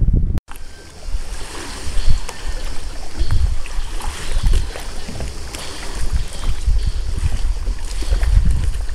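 Wind buffeting a handheld camera's microphone in irregular low gusts over a steady outdoor hiss, with a brief dropout to silence about half a second in.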